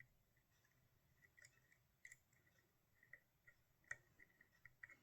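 Faint, irregular clicking of a disk detainer pick turning the rotating discs inside a Parkside disk detainer lock, small sharp ticks with the clearest about four seconds in.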